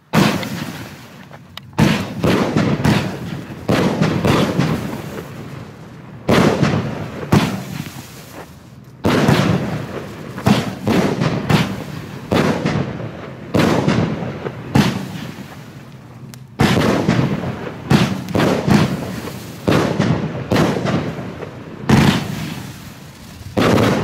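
Funke Silberpalmen Blinker 16-shot fireworks cake firing, with more than a dozen sharp shots coming about every one to two seconds. Each shot dies away over a second or so before the next.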